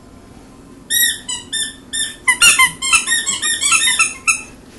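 Squeaky toy being squeezed over and over: short high-pitched squeaks starting about a second in, then coming quickly one on another.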